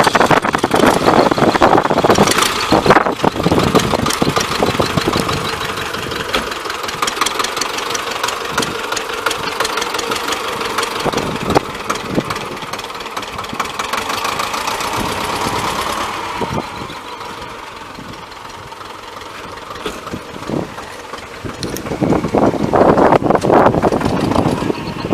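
A freshly repaired T-25 tractor's two-cylinder air-cooled diesel engine runs with an even, rapid firing clatter as the tractor drives. The sound drops in level about two-thirds of the way through and grows louder again near the end.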